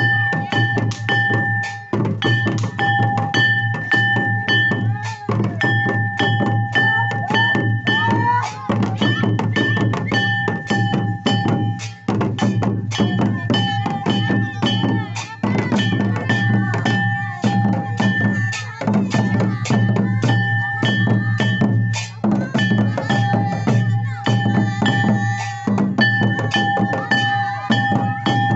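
Santali Sohrai folk music: a fast, steady drum rhythm under a repeating high melodic line and a low drone.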